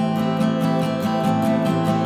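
Background music led by a strummed acoustic guitar, with a quick, even strumming rhythm over held chords.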